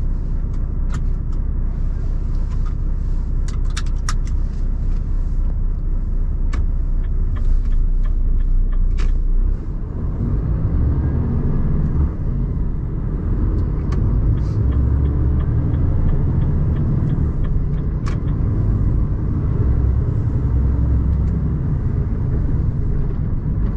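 Renault T480 truck's 13-litre straight-six diesel running on the move, heard from inside the cab as a steady low rumble with road noise. The level drops briefly about ten seconds in, and a few light clicks sound now and then.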